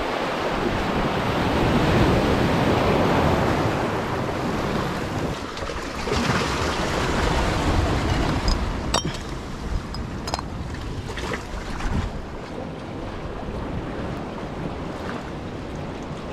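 Small waves washing over a rocky shore, with wind on the microphone. It is loudest in the first few seconds and eases off after, with a few sharp clicks near the middle.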